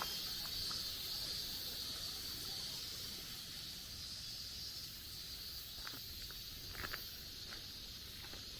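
Steady high-pitched insect drone in woodland, with a few footsteps about six and seven seconds in.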